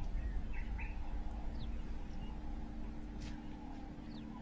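A few short bird chirps and quick falling calls, spaced out, over a low steady rumble of outdoor background.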